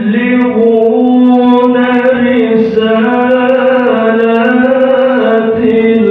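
Melodic Qur'an recitation (qira'ah) by a single reciter: long, drawn-out notes with small ornamental turns and dips in pitch, the voice running on without a break.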